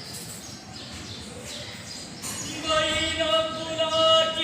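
A Vasudev, the Maharashtrian morning devotional folk singer, sings. About halfway in, his voice comes in and holds one long, steady note.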